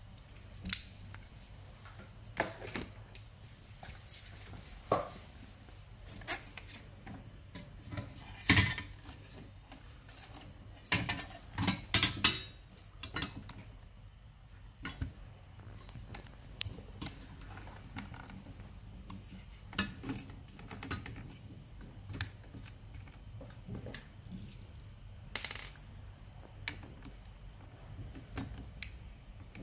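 Scattered small clicks and knocks of tools and a circuit board being handled, with a louder cluster about eight and twelve seconds in, over a faint low hum.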